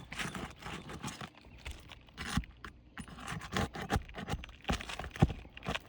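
Irregular scrapes and knocks of a metal tool working under asphalt shingles, prying them loose to pull the nails.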